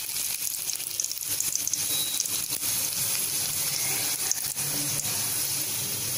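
Tempering spices (mustard seeds, cumin seeds and dried red chillies) sizzling in a spoonful of hot oil in an aluminium kadai: a steady hiss with many small crackles throughout.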